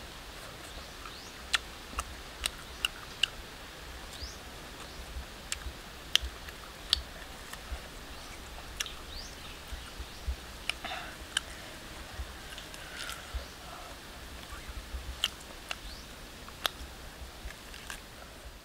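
Close-up eating of grilled pork ribs: chewing and lip-smacking with sharp, irregular clicks of teeth on meat and bone, a few much louder than the rest. Faint short chirps sound now and then in the background.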